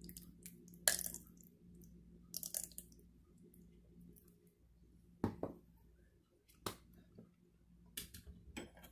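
Faint, scattered clicks and taps of kitchen utensils being handled on a counter, a measuring cup and spoon around a glass mixing bowl, over a low steady hum.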